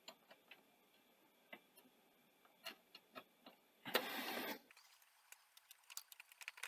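Faint clicks and taps of a screwdriver and small metal parts as screws are fitted into a Betamax deck chassis. About four seconds in comes one short, noisy rub or scrape lasting under a second, the loudest sound here.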